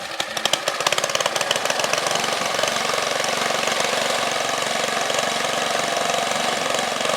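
Small engine of a 1972 National tractor running cold. Quick, distinct firing pulses in the first couple of seconds rise and smooth into a steady, faster run.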